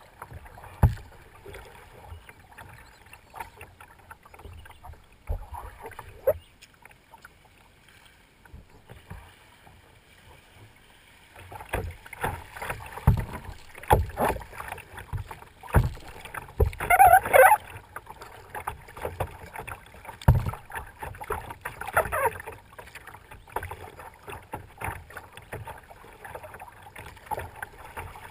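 Kayak paddling on a river: paddle strokes and water splashing and dripping around a plastic kayak, with scattered dull thumps. It is quieter for about the first ten seconds and busier after that. A short wavering high-pitched sound comes a little past the middle, the loudest moment, with a fainter one soon after.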